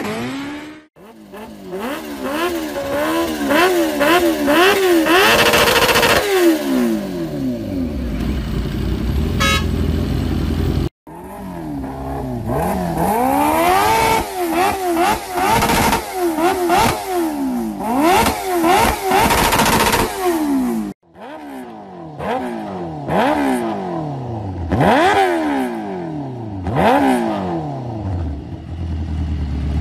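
Kawasaki Ninja H2's supercharged inline-four engine revved over and over, its pitch climbing and dropping in quick throttle blips. The sound comes in three stretches, with abrupt cuts about a second, eleven seconds and twenty-one seconds in.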